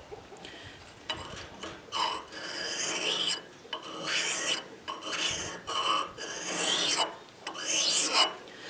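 Steel ice auger blade being rubbed back and forth on an oiled sharpening stone, a rasping hiss in separate strokes about once a second, honing the blade's main cutting edge.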